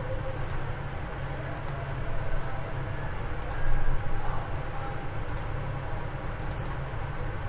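Computer mouse buttons clicking in small clusters of two or three, about every one to two seconds, over a steady low electrical hum.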